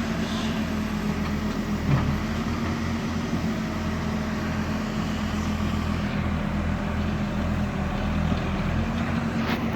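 Diesel engine of heavy machinery running steadily, with one short knock about two seconds in.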